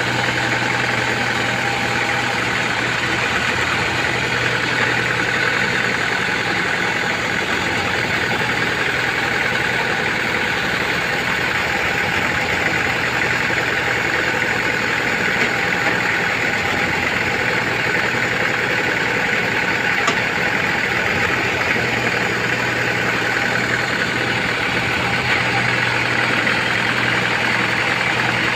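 Band sawmill running steadily, its band blade sawing lengthwise through a trembesi (rain tree) log, with a low motor hum under the noise of the cut.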